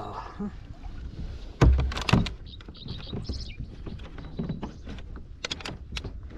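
Irregular knocks and clunks, the loudest a heavy thump about one and a half seconds in.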